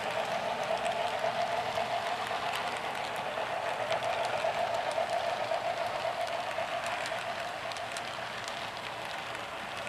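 Model-railway freight cars rolling past on the track: a steady rolling hum of small metal wheels on rail with light scattered clicks, easing off a little in the last few seconds.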